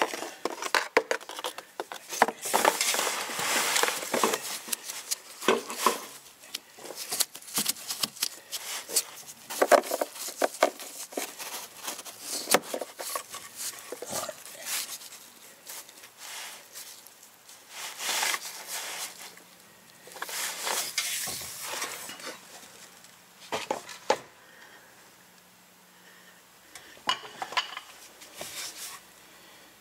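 Irregular clinks, clicks and rustling from hands handling tools, containers and a fill hose while the transfer case is being filled with fluid, with a quieter spell about two-thirds of the way through.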